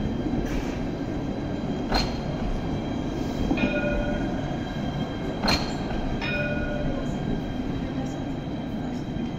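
A low-floor Alstom Citadis tram running slowly past on street rails, with a continuous rumble and a steady high whine. Two sharp clicks sound about 2 and 5.5 seconds in, and two short pitched tones about 3.5 and 6 seconds in.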